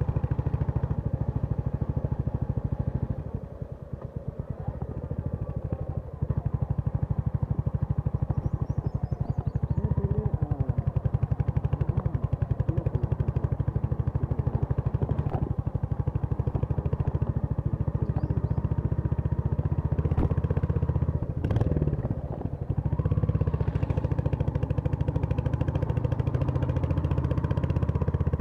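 Royal Enfield Hunter 350's single-cylinder engine running steadily under way, with an even low pulse; it drops in loudness briefly twice, about four seconds in and again near three-quarters of the way through.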